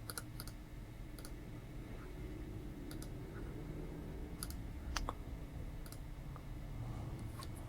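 Scattered sharp clicks of a computer mouse and keyboard, about eight in all, irregularly spaced, over a faint steady low hum.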